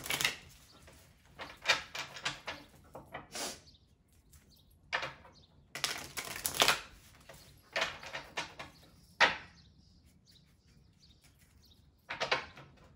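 Deck of tarot cards being shuffled by hand, in short bursts of cards rustling against each other separated by quiet gaps.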